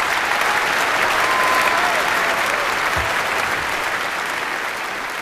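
Concert-hall audience applauding steadily after a symphony performance, gradually fading over the last few seconds.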